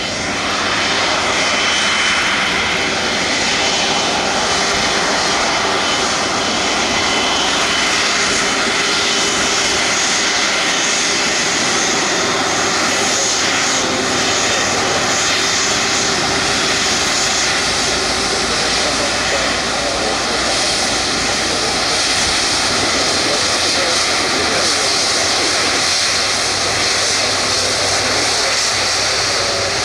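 Military jet aircraft's engine noise, loud and steady, with a faint high whine over it.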